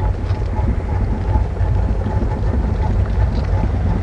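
Steady low rumbling noise of wind buffeting the microphone out on the open river.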